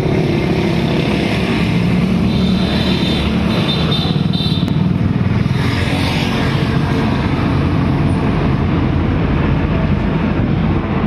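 Swaraj 963 FE tractor's three-cylinder diesel engine running steadily at a constant speed, with no revving.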